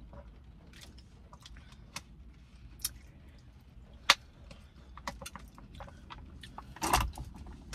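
Eating sounds: chewing with scattered sharp clicks and taps over a low steady hum, with a louder click about four seconds in and a short louder clatter near seven seconds.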